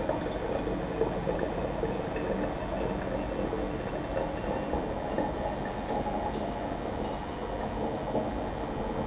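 Home-made white grape wine running from a fermenting jar's tap through a thin tube into a glass wine bottle: a steady trickle of liquid filling the bottle during bottling.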